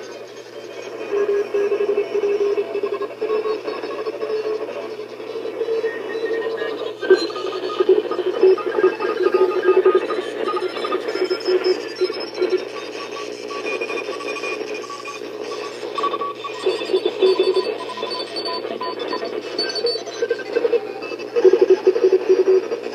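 Shortwave radio receiver on sideband in the 21 MHz band, playing many overlapping beeping tones at different pitches that key on and off irregularly, like scrambled Morse code or data signals.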